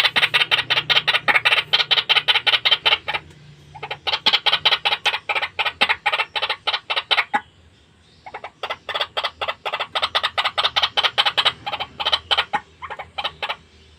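White-breasted waterhen calling: a fast run of harsh repeated notes, about five or six a second, in long bouts broken by short pauses about three and seven seconds in, then a few scattered notes near the end.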